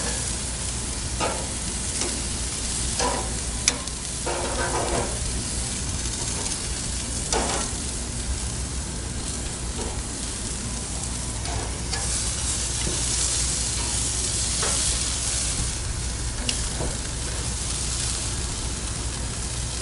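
Lamb and vegetables sizzling as they sear on a hot barbecue grill, a steady frying hiss with a few sharp clicks.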